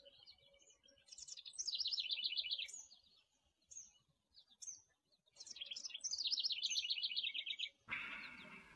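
Songbirds singing: two long phrases of rapid repeated notes, with a few short separate chirps between them. A soft hiss comes up near the end.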